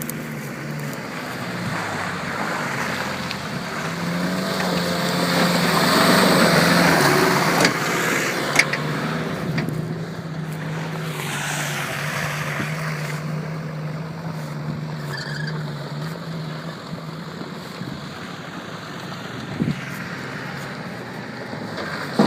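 Off-road 4x4's engine running under load, growing louder with a rush of noise to its peak about six seconds in, then running steadily and easing off later on. A couple of sharp knocks come around eight seconds in.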